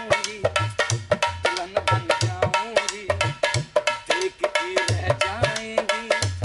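Dholak played by hand in a fast rhythm, sharp slaps on the treble head over repeated deep booms from the bass head.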